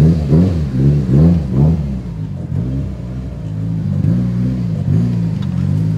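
Mitsubishi Lancer Evolution VIII's turbocharged 4G63 inline-four heard from inside the cabin, pulling away at light throttle, its pitch rising and falling in short swells as the revs change, steadier for a moment in the middle.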